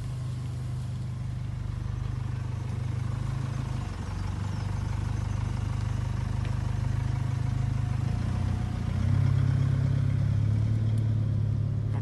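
A steady, low engine hum like an idling motor, growing louder about nine seconds in.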